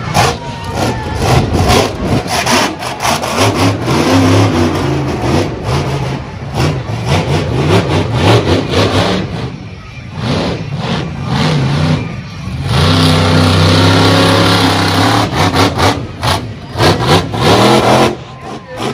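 Monster truck engine revving hard, rising and falling in pitch over and over, with one long sustained high-rev run about two-thirds of the way through.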